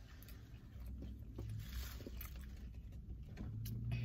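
Quiet eating sounds: small clicks and rustles of food being handled in a plastic takeout tray, and chewing, over a low steady hum.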